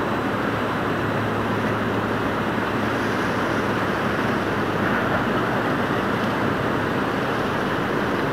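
Steady rumbling noise of the helicopter destroyer JS Hyuga passing close under its gas-turbine propulsion, with a faint low hum that fades about two seconds in.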